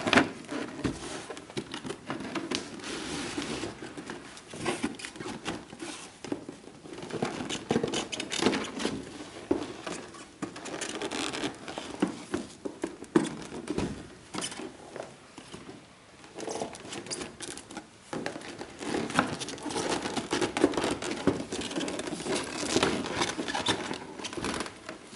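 A cardboard shoe box being opened, then a thin plastic shoe-protector sheet rustling and crinkling as it is handled, with a sharp knock right at the start and scattered clicks and scrapes throughout.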